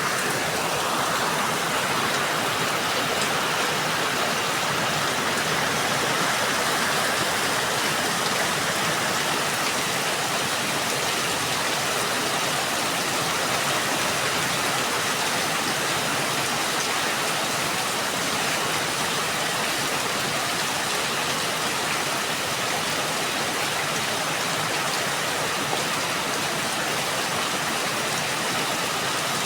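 Steady rain falling, an even hiss of drops with no break or change.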